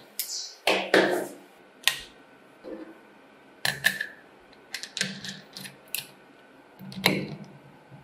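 Metal clicks, clinks and knocks of an angle grinder's disc being swapped by hand: a cutting disc lifted off the spindle, a flap sanding disc set in its place, and pliers turning the flange nut. A dozen or so short, sharp sounds, irregularly spaced.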